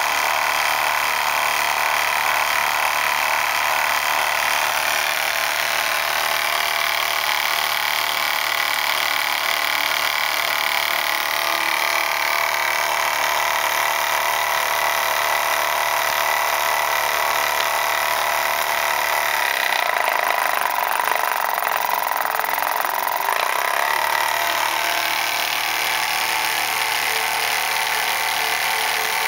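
Small model steam engine running on a steam test, with a steady hiss of steam over its low mechanical running; the low hum drops away for a few seconds about two-thirds of the way through, then comes back.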